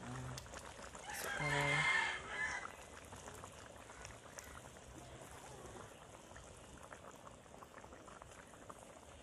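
Coconut milk poured from a carton in a thin stream into a wok of simmering wild boar rendang, with a quiet bubbling and crackle from the pan. About a second in, a loud drawn-out call lasting just over a second rises over it.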